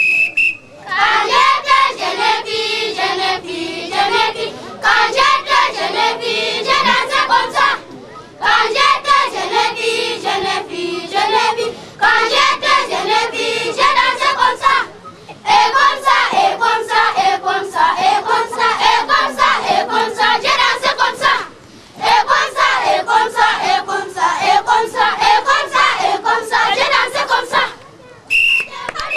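A group of children singing and chanting together in loud phrases a few seconds long, with brief breaks between them, accompanying a stick dance. A whistle blows briefly near the end.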